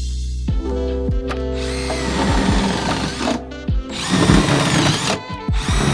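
Power drill running in two bursts of about a second and a half each, with a third starting near the end, over background music with a steady beat.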